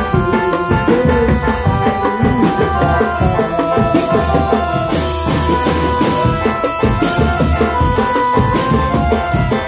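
Marching drum band playing: fast, dense drumming under held melody notes.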